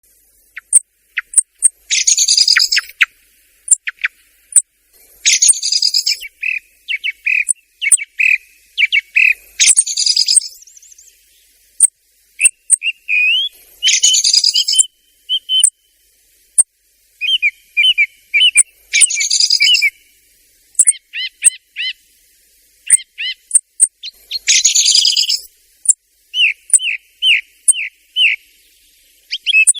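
Thrush and common blackbird calls: sharp high ticks scattered throughout, harsh chattering bursts recurring every four to five seconds, and runs of short whistled notes in between. It is a lure-call recording of the kind used to draw these birds in.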